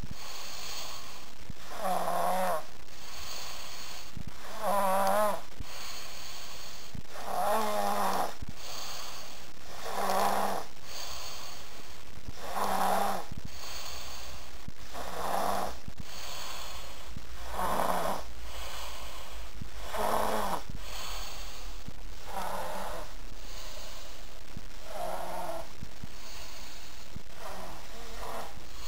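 Snoring of a two-and-a-half-year-old sleeper: a rattling snore on each breath, about every two and a half seconds, each with a wavering pitch.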